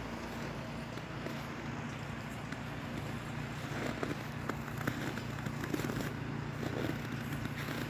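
A steady low mechanical hum, with scattered crackles and clicks over it for a few seconds in the middle.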